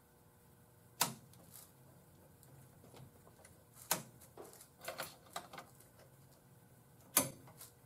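Sharp clicks from the steering-column switches of a 1968 AMC AMX worked by hand, as the turn signal and hazard flasher controls are tested on battery power. There is a single click about a second in, another near four seconds, a quick run of clicks around five seconds, and a last one near the end.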